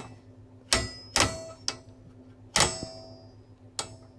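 Dial drum mechanism of a vintage Rohde & Schwarz UBM tunable indicating amplifier being turned by hand: about half a dozen sharp clicks at uneven intervals, each with a brief metallic ring.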